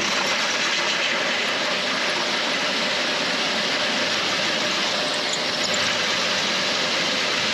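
Power drill boring the large cable hole through a welded metal tab of the solar-panel arch: a steady, unchanging rushing noise.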